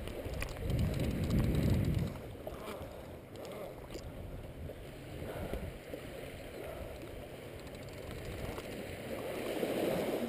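Beach ambience: wind rumbling on the microphone over small waves lapping at the shoreline, louder from about half a second to two seconds in and again near the end.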